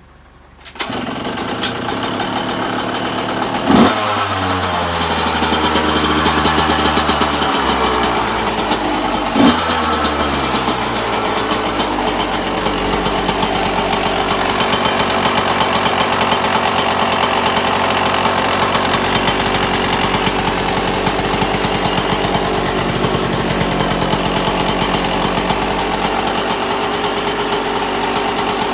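A 1998 Yamaha YZ125's single-cylinder two-stroke engine fires up on a cold start with the choke on, about a second in. It gets two quick throttle blips that fall back, then runs steadily. Its running has a diesel-like sound that the owner suspects is a bad main bearing.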